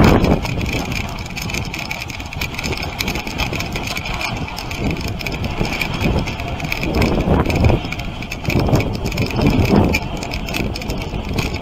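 Dog sled gliding over packed snow: a steady rumble and hiss from the runners sliding on the trail, with scattered knocks and rattles from the sled, louder around the middle and near the end.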